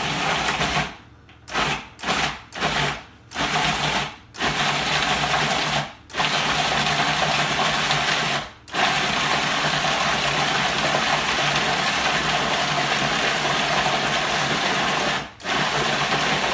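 Waring food processor motor blending raw pig liver, heart and kidneys: a few quick pulses over the first four seconds, then longer runs broken by short stops, the longest about six seconds.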